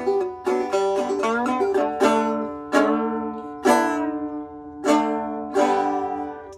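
A fretless banjo with its tape fret markers removed, played in a tune. Quick plucked notes with a sliding pitch about a second and a half in give way to a few slower ringing strums that end the tune and fade.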